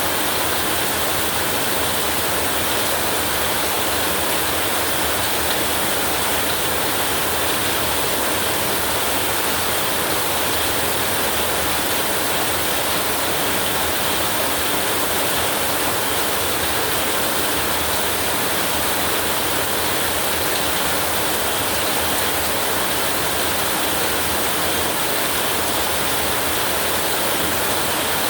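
Torrential rain falling in a steady, dense hiss.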